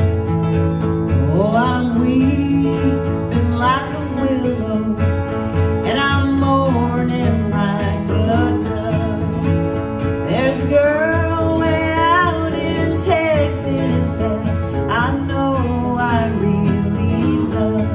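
Two acoustic guitars strummed together under two women's voices singing an old-time country song.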